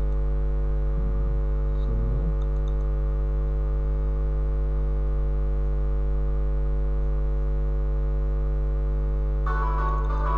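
Steady electrical mains hum on the recording, a low buzz with many overtones. About a second before the end, plucked guitar music starts: the soundtrack of the rendered animation beginning to play.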